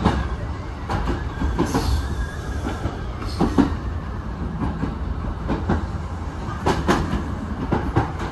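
Kintetsu 2000 series commuter train running on single track, heard from inside the front car: a steady low rumble with a few sharp clacks of the wheels over rail joints, about halfway and near the end.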